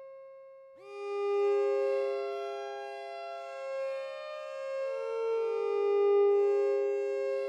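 Slow background music of long, held electronic notes. A new chord comes in about a second in, and the notes change pitch a few times after that.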